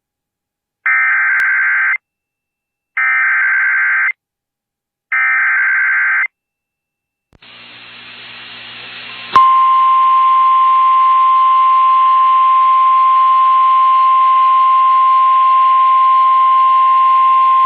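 An Emergency Alert System broadcast. First come three short bursts of SAME header data tones, the buzzy digital screech of the EAS code, each about a second long and about a second apart. After a pause, radio hiss fades in, and then the National Weather Service's steady single-pitch 1050 Hz warning alarm tone sounds over the hiss, announcing a severe thunderstorm warning.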